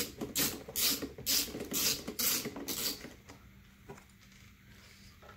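Socket ratchet clicking in quick back-and-forth strokes, about two to three a second, as it works a small bolt loose, then stopping about three seconds in, followed by a few light knocks of the tool.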